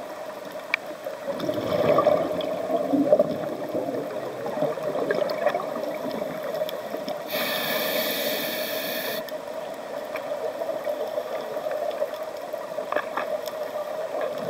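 Underwater sound of a scuba diver breathing through a regulator: a burst of exhaled bubbles about two seconds in, a high hiss of inhalation lasting about two seconds near the middle, and more bubbles near the end, over a steady underwater hum.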